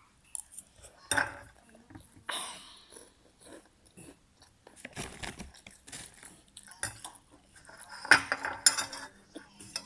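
Close-up eating sounds: chewing and crunching on snack food, with utensils clinking against a bowl in irregular bursts. The loudest bursts come about a second in, near two and a half seconds, and near the end.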